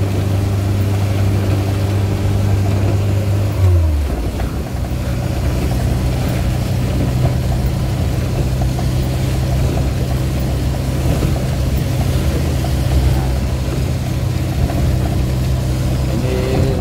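Suzuki Carry 1.0's 1000 cc engine running steadily, heard inside the cab, over the steady hiss of heavy rain on the van. About four seconds in the engine note dips briefly, then settles at a slightly higher steady pitch.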